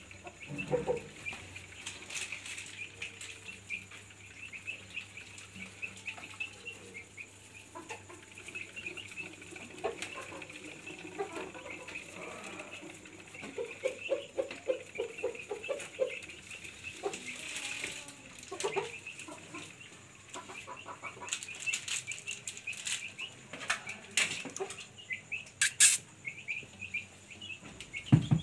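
Small cage birds chirping continuously in the background, with scattered rustles and knocks. Midway, a rhythmic rattle for about two seconds, about eight beats a second, as a hamster runs in its wheel.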